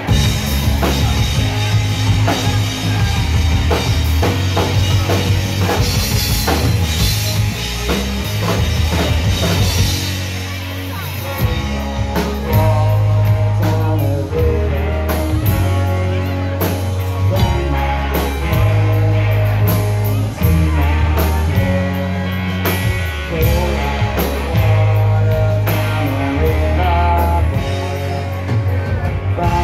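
Rock band playing live, loud: electric guitar, drum kit and a deep bass line moving between held notes every second or two, with the full band coming in right at the start.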